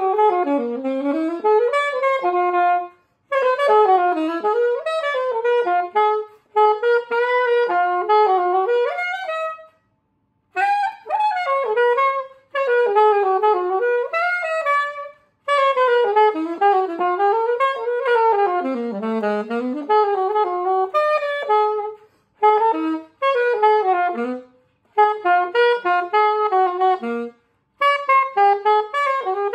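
Unaccompanied alto saxophone playing a jazz line in phrases of quick, winding notes, broken by short pauses for breath.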